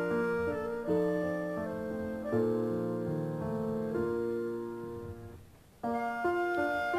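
Background piano music, a melody of held notes that fades away a little over five seconds in and starts up again abruptly.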